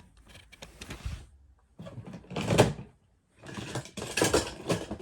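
Toy cars being moved and handled, a mechanical clatter in two bursts: a short one about two seconds in and a longer one from about three and a half seconds.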